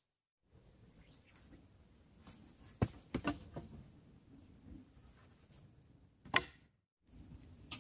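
Wooden tripod poles knocking as the stand is taken apart: a few sharp knocks about three seconds in and one more a little after six seconds, over a faint background.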